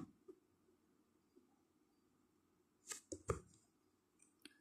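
Near silence with faint room tone, broken by a short click at the start and a quick cluster of about three clicks about three seconds in: computer mouse or keyboard clicks.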